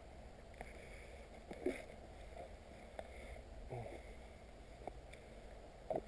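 Footsteps pushing through leafy undergrowth and dead wood, with scattered sharp snaps and rustles, over a faint low rumble. A brief pitched sound stands out about two seconds in, and a weaker one near four seconds.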